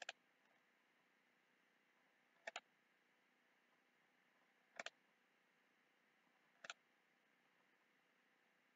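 Computer mouse button clicking four times, a couple of seconds apart, each click a quick double tick, against near silence.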